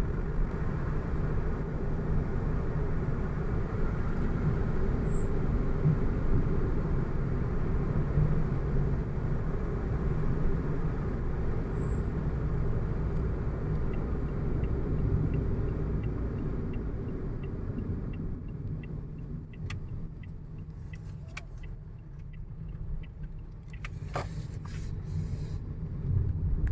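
A car driving, giving a steady low rumble of engine and road noise. The rumble eases off for a few seconds near the end, with a few light clicks, then picks up again.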